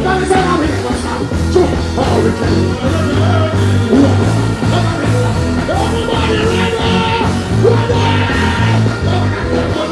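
Live reggae band playing through a stage sound system, with a heavy repeating bass line and a male vocalist singing and chanting over it.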